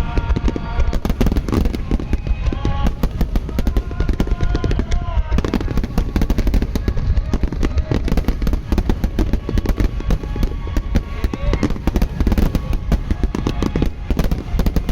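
A rapid, continuous barrage of fireworks shells bursting and booming, with a deep rumble, while music with sustained melodic notes plays along.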